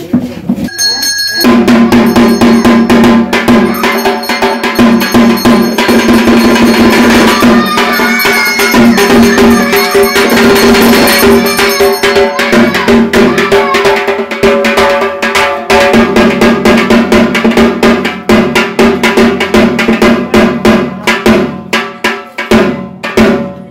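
Rapid, continuous beating of drums and clanging metal percussion, as played at a puja, over a steady held tone; it stops just before the end.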